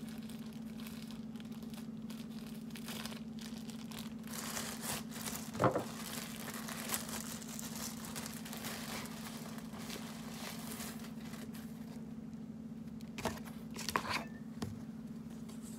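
A thin plastic bag crinkling and rustling as it is handled and opened, with a few sharp knocks, the loudest about six seconds in, over a steady low hum.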